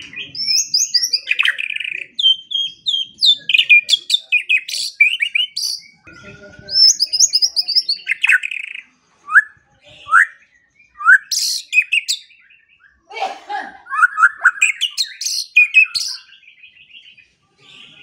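White-rumped shama singing: a varied song of clear whistled notes, fast runs of notes and sharp upward-sweeping calls, delivered in phrases with brief pauses between them.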